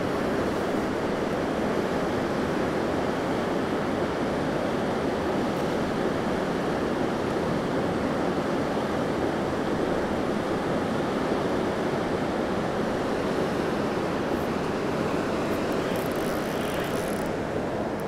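Steady rushing of a fast, wide river flowing past rocks.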